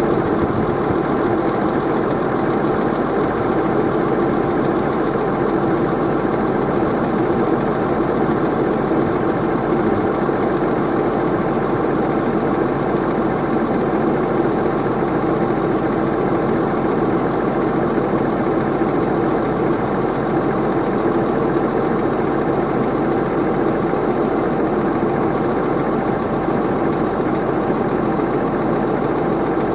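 Tractor engine running at a constant speed, driving a Kuhn i-BIO+ round baler-wrapper through its PTO; a steady drone with no changes in pitch or level.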